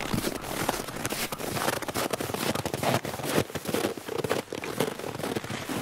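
Footsteps crunching through dry snow, with irregular crackling steps.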